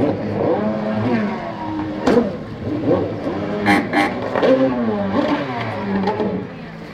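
Jet ski engine revving up and down again and again as the craft carves tight turns, the pitch rising and falling every half second or so. A few sharp knocks about two and four seconds in.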